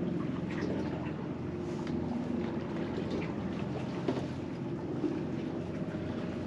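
A small fishing boat's outboard motor running steadily at low speed with an even hum.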